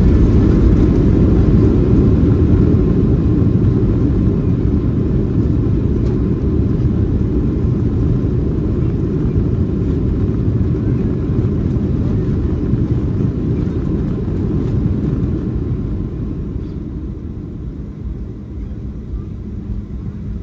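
Cabin noise of a Boeing 737-300 on its landing roll: a loud, deep roar of engine and runway noise that slowly dies away as the airliner decelerates. Near the end it settles into a quieter, steady hum.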